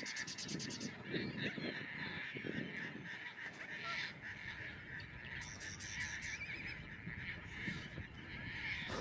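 Marsh bird sounds: waterfowl calling, over a steady background of small birds chirping and trilling.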